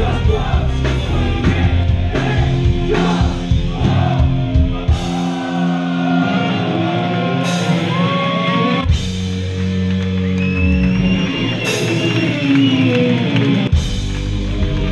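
A live rock band with a singer and saxophone playing loudly. About a third of the way in, the drums and bass drop out for a sparser stretch of singing and held notes. The full band crashes back in near the end.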